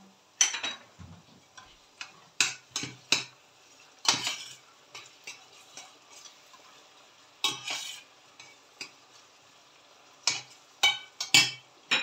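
Metal spoon scraping and clinking against a stainless steel pan as chopped tomato is stirred into sautéed onions, about a dozen short strokes in irregular groups.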